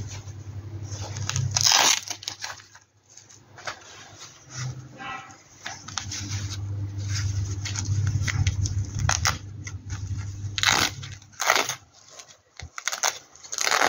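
Nylon costume fabric rustling and crinkling as hands handle it, with a louder rustle at about 2 seconds and again near 11 seconds, over a steady low hum.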